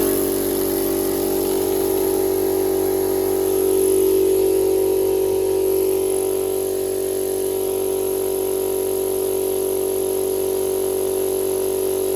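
Small air compressor running steadily while it fills an added auxiliary tank, a constant motor hum with a high whine above it.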